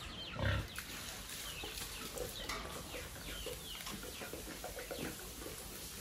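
Chickens clucking and calling in many short, quick notes. A pig grunts loudly once, about half a second in.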